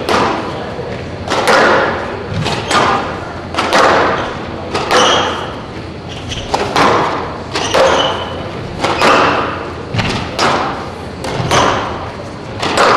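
Squash rally: the ball cracks off the racquets and thuds off the court walls about once a second, each hit echoing around the enclosed court.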